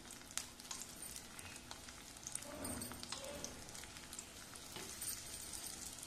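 Bitter gourd slices coated in gram flour and rice flour frying in mustard oil in a kadhai: a faint, steady sizzle with scattered crackles and pops.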